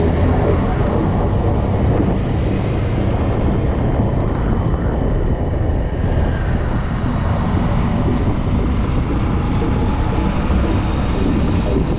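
Motorcycle engine running steadily at cruising speed, heard from the rider's own bike, with wind rushing over the microphone.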